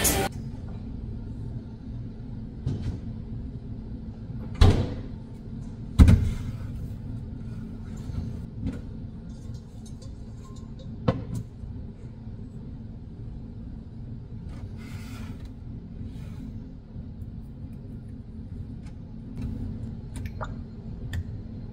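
Kitchen handling noises: a few knocks and clunks from a stainless steel pot being handled, the two loudest about five and six seconds in, over a low steady hum.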